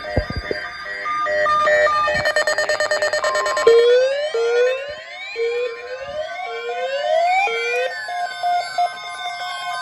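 NOAA Weather Radio emergency alert: the SAME digital header's rapid data bursts, then the steady warning alarm tone. From about four seconds in, a second alarm joins with a rising siren-like sweep repeating roughly once a second.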